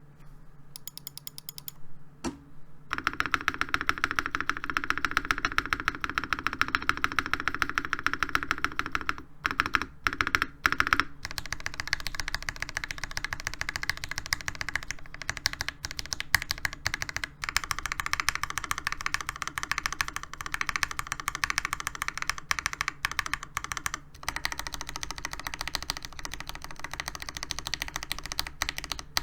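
NovelKeys NK87 Entry Edition mechanical keyboard with hand-lubed Gateron Oil King linear switches on a brass plate and ABS Cherry-profile keycaps, its keys pressed rapidly at random. A few scattered key presses at first, then a fast, continuous run of clicks from about three seconds in, pausing briefly twice.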